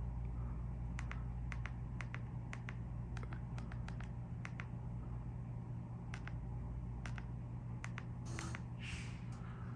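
Buttons of a Control4 SR-260 universal remote clicking as its cursor pad is pressed again and again: a string of short, irregularly spaced clicks over a steady low hum.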